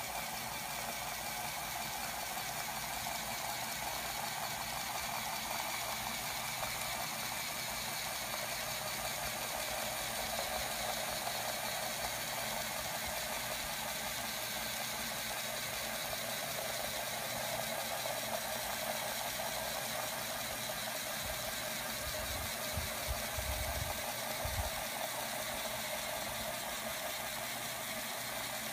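Small electric motor of a LEGO street-sweeper model driving its plastic gears and brushes, running with a steady whirr. A few low thumps come about three-quarters of the way through.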